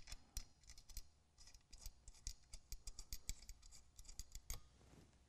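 Faint, irregular light clicks and ticks, several a second and busiest midway, as hands handle a ProCharger supercharger head unit at its ribbed drive pulley and aluminium housing.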